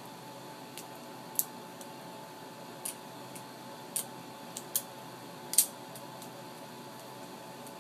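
Benchmade 67 balisong being flipped: scattered, irregular sharp metallic clicks as its handles and latch clack together, the loudest about five and a half seconds in, over a steady faint hum.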